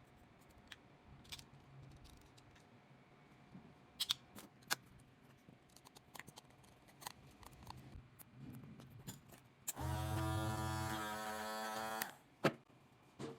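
Electric hair clipper being handled, with small clicks and taps from its blade and parts. Near the end it is switched on and buzzes steadily for about two seconds, then is switched off, followed by a couple of sharp clicks.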